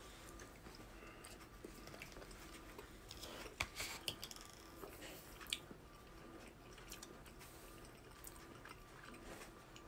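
Faint chewing and mouth sounds of a person eating a hot mouthful of eggs, with a few soft clicks near the middle.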